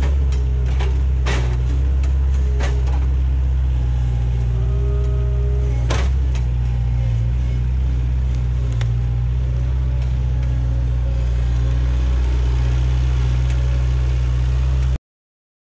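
Bobcat skid-steer loader's engine running steadily under load, with wavering hydraulic whine and several sharp knocks as its grapple sets logs down. The sound cuts off suddenly near the end.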